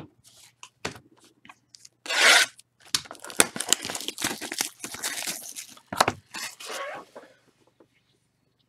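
Hands tearing and crinkling trading-card box packaging: a loud rip about two seconds in, then several seconds of crackling and rustling with sharp clicks.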